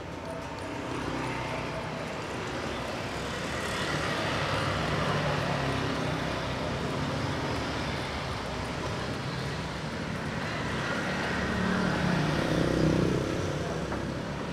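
Street traffic: a steady hum of passing vehicles' engines and tyres, swelling louder twice as vehicles go by.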